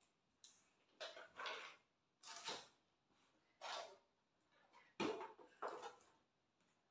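Household items being picked up and put away while tidying a room: a run of faint, short rustles and knocks, about five in all, the sharpest knock about five seconds in.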